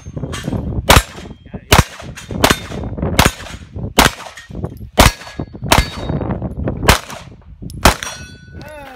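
Handgun shots fired one at a time at steel targets, roughly one shot a second, about ten in all. Each shot is followed by the short ring of the steel plate it hits.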